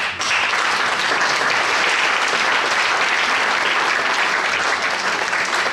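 Audience applauding: dense, steady clapping that breaks out suddenly.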